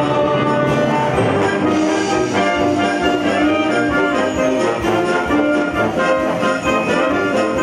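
Orchestra of strings and brass playing a melody, the brass carrying it.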